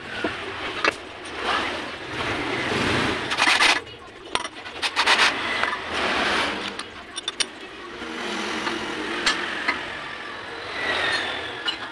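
Metal clanks, knocks and scraping as a cast-iron meat grinder body is set and clamped in a lathe's four-jaw chuck with a chuck key, in irregular bursts over a noisy workshop background.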